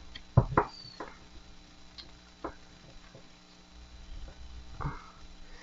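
A deck of thick matte cardstock oracle cards being handled and shuffled: a few separate light clicks and taps, the sharpest about half a second in.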